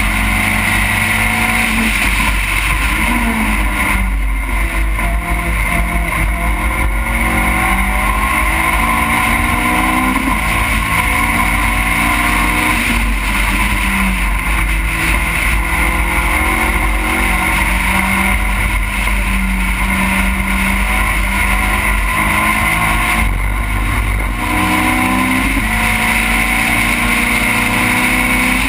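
A race car's engine at high revs, heard onboard. Its pitch climbs steadily and drops back at each gear change, several times, over a constant rush of wind noise.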